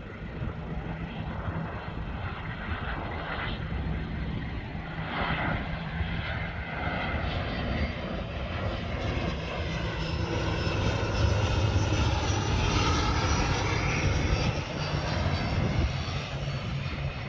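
ATR turboprop airliner landing: its engines and propellers drone with a whine that bends in pitch as it passes, growing louder toward the middle and easing a little near the end.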